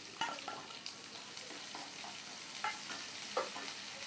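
Chopped onion sizzling in hot oil with cumin seeds in a nonstick frying pan, stirred with a spatula, with a few sharp knocks of the utensils against the pan.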